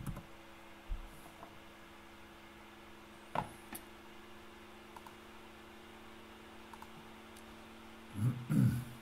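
Sparse computer mouse clicks and key presses over a steady low electrical hum, with a short, louder low muffled sound near the end.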